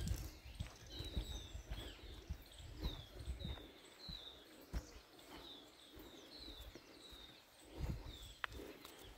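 A bird calling over and over in short falling chirps, about two a second, with soft low thumps underneath.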